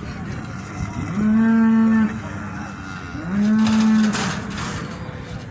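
Cattle mooing: two long bawls about two seconds apart, each held at one steady pitch.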